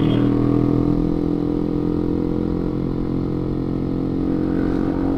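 Motorcycle engine running at a steady, unchanging pitch while riding at constant speed, over low road and wind noise.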